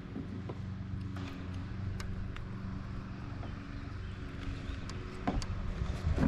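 A steady low motor hum, with a few light clicks over it.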